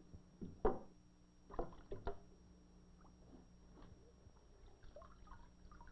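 Water splashing and dripping from a mesh net as an electric eel is hoisted out of its tank, with a few sharp splashes in the first two seconds and then faint trickling. A steady low hum runs underneath.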